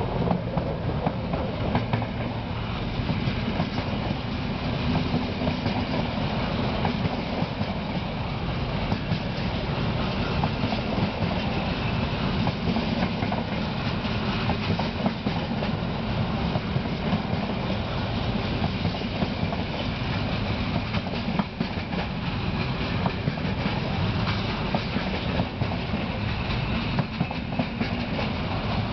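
Intermodal freight train's container flat wagons rolling steadily past at close range, wheels clicking rapidly over the rail joints.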